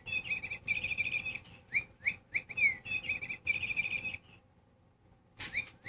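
Electronic bird-chirper toy giving repeated short, falling chirps and quick trills, set off by being moved. It stops for about a second near the end, then chirps again.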